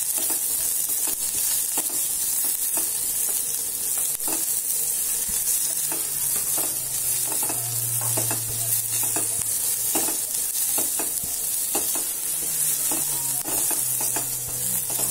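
Chopped small onions, curry leaves and tempering spices frying in oil in a stainless steel pot: a steady sizzle, with irregular clicks and scrapes as a silicone spatula stirs against the pot.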